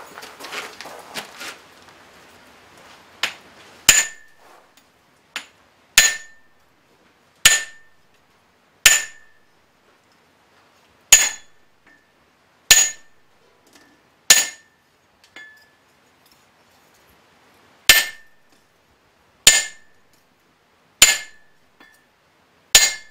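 Hammer blows striking a blacksmith's flatter held on steel on an anvil, about fourteen sharp strikes roughly one every one and a half seconds with two short pauses, each leaving a brief high metallic ring. The flatter is smoothing hammer marks out of the forged blade.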